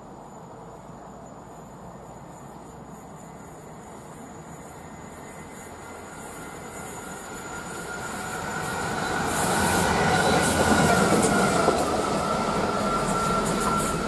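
Class 66 diesel locomotive with a two-stroke V12 engine, running light and approaching, then passing close by. Its engine and wheel rumble build steadily to their loudest about ten seconds in. From about eight seconds a thin, steady wheel squeal rides on top.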